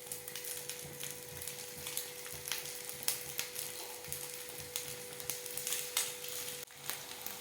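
Pieces of steamed semolina batter sizzling in a little oil on a hot dosa tawa, a steady low hiss with scattered small crackles.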